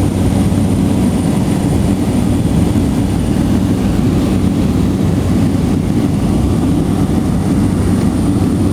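Steady engine drone heard inside the cabin of a small plane in flight, loud and unchanging.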